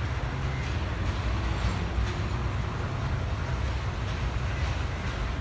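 Passenger train hauled by an M2 diesel locomotive pulling away down the line, a steady low rumble with a few faint clicks.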